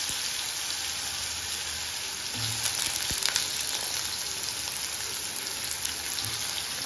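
Lengthwise-cut potato sticks frying in hot oil in a kadai with mustard seeds, urad dal and cumin: a steady sizzle with fine crackling.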